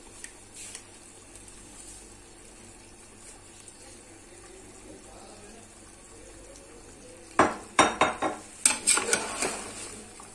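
Metal spoon clanking and scraping against a large aluminium cooking pot as chunks of mutton coated in spiced yogurt are stirred, a quick run of knocks starting about seven seconds in.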